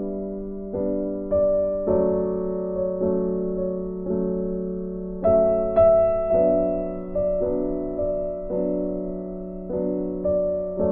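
Background music: a soft keyboard piece of chords struck about every half second over a held low note.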